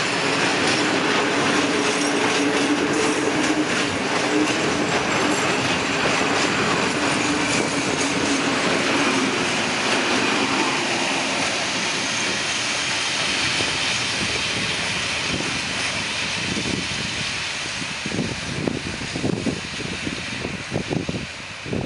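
A freight train of open wagons rolls past close by with a loud, steady rumble and clatter of wheels on the rails, and a steady tone in the first half that fades out. Near the end the last wagons pass and the noise breaks into separate clacks as the train draws away.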